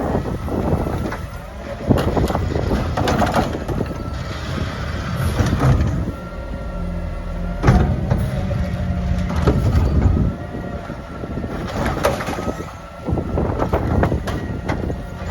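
Mack LR garbage truck with a McNeilus Meridian body working: the engine runs with a whine that rises and falls in pitch, with several sharp metal clanks and wind buffeting the microphone.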